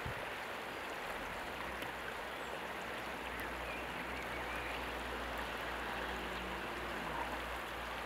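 Steady rush of a flowing river along a stony bank, an even wash of water noise that holds at one level throughout.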